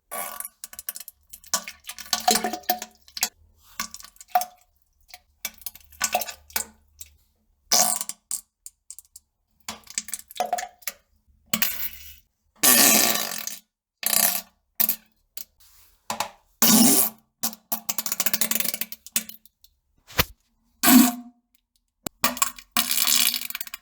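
A rapid series of short fart and poop sound effects, cut one after another with dead silence between them, most very brief and a few lasting about a second.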